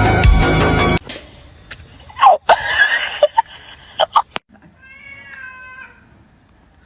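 Music cuts off about a second in, then a cat meows in several short, loud calls, followed by a higher, thinner drawn-out meow.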